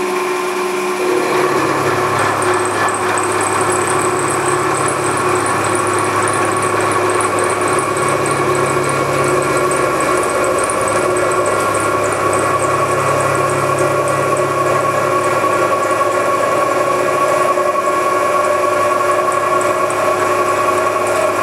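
Milling machine taking a slow cut with a T-slot cutter turning at about 200 RPM, the cutter milling a T-slot in metal. A low running sound comes in about a second in and swells and eases slowly under a steady machine hum, with a fast, light ticking high up during the first half.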